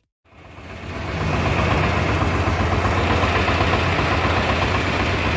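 An engine idling steadily nearby, a low, rapid rumble that fades in over the first second and then holds level.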